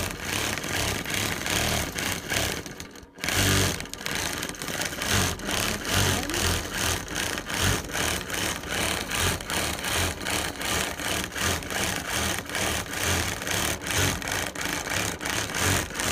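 Longarm quilting machine stitching, its needle running in fast, even strokes as it sews back and forth across the fabric. It stops briefly about three seconds in, then runs on.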